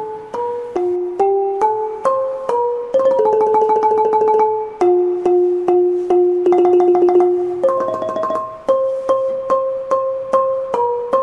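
Instrumental interlude music: a slow melody of single notes on a keyboard instrument, each note quickly re-struck over and over.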